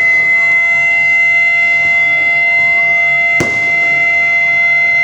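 Siren wailing loudly at one steady held pitch, with a fainter second siren tone gliding down and back up underneath and a sharp click about three and a half seconds in. The siren signals that the reading of the Indonesian Proclamation text is about to begin.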